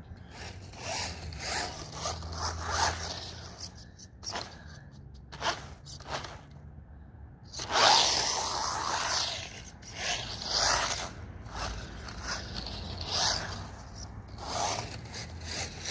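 Off-road RC car driven at full speed, its electric motor and gears whining in repeated swells as it passes back and forth over artificial turf. It is loudest about eight seconds in, as it goes by close.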